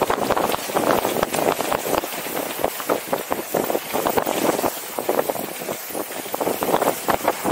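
Mountain bike rolling fast down a dry dirt singletrack: tyres crunching over dirt and loose stones, with the bike rattling and knocking over bumps many times.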